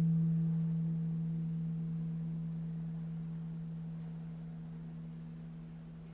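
A singing bowl's low tone ringing out and slowly fading, its upper overtones pulsing in a gentle wavering beat.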